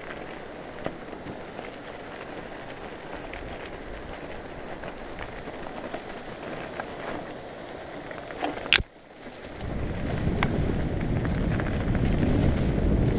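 Mountain bike rolling down a gravel track: steady tyre noise on loose stones with small clicks and rattles from the bike. About nine seconds in there is a sharp click and a brief drop in level, then a louder, lower rumble of tyres and wind as the bike runs down rough forest singletrack.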